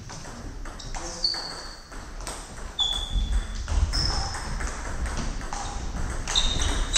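Table tennis ball being struck back and forth in a rally: sharp clicks of ball on bat and table, about two a second, some with a short high ping, in a large sports hall.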